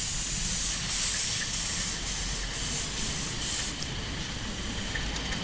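Winson model Britannia live-steam locomotive hissing steam in several loud bursts, the hiss easing off about three and a half seconds in.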